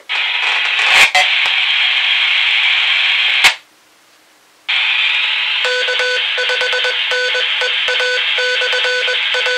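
Baofeng UV-S9 Plus handheld radio's speaker receiving the repeater's reply to a repeater check: a rush of static that cuts off with a squelch click, then after about a second comes back with the repeater's Morse-code ID beeping over the hiss. The reply shows the handheld is reaching the repeater.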